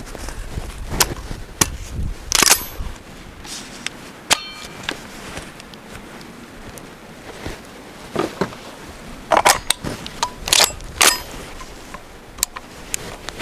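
A series of separate sharp clicks and metallic clanks at uneven intervals, one of them ringing briefly about four seconds in.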